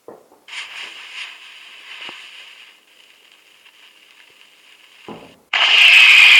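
Firework hissing as it burns: a faint hiss with a few small clicks, then a much louder, sharper hiss starting about five and a half seconds in.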